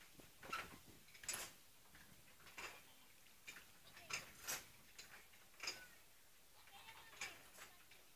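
Faint, irregular clicks and crackles, about a dozen of them, spaced unevenly half a second to a second or more apart.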